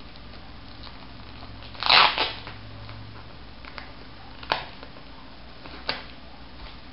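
Plastic wrapping around a stack of comic books crinkled and pulled open by hand: one loud crinkle about two seconds in, then a few short, sharp crackles.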